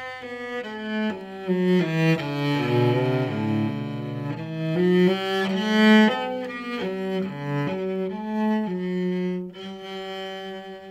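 Solo cello played with the bow: a quick, flowing passage of changing notes, some sounding two at a time, settling onto a long held note near the end.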